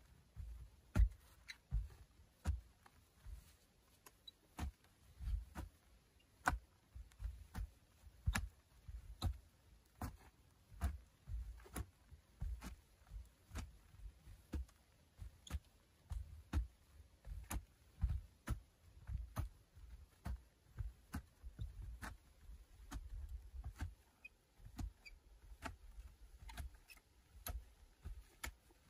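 Shovel blade repeatedly chopping into a packed earth bank, each strike a sharp scrape-and-thud, about one to two a second, with loosened soil falling.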